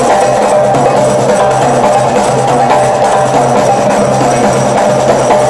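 A percussion ensemble playing a loud, continuous, dense drum groove on drums and cymbals.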